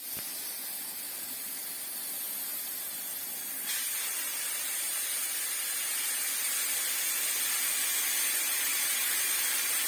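R134a refrigerant hissing steadily out of an opened refrigerator's sealed system, getting louder about four seconds in. The strong, full flow shows the charge is all still there, which points most likely to a blocked capillary tube rather than a leak.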